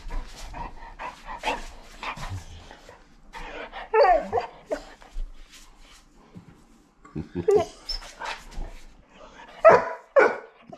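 Saint Bernard puppy making drawn-out whining calls at intervals, then barking loudly twice near the end, demanding something from its owner.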